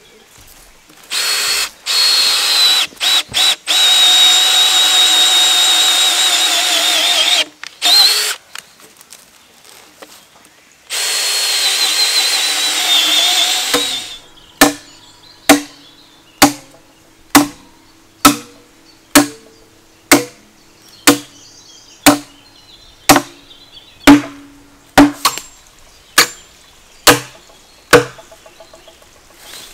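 Cordless drill with a long auger bit boring through a timber railway sleeper in two runs, the first with a few brief stops and the second sagging in pitch near its end as the bit works under load. Then a hammer strikes steadily about once a second, around fifteen blows with a short metallic ring after each, driving steel threaded rod through the sleepers.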